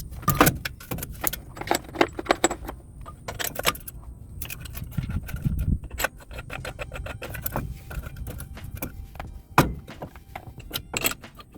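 Metal parts clinking, clanking and rattling in a rapid, irregular series of sharp knocks, with one louder knock near the end: the back plate and wheel hub being handled and fitted back onto the truck's front knuckle.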